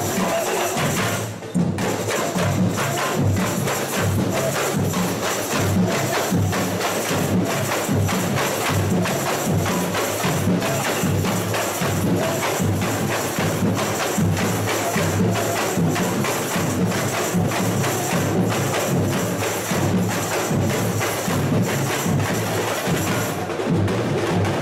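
A samba school bateria playing a steady, dense samba groove on drums and tamborins. The whole section drops out briefly about a second and a half in, then comes back in together.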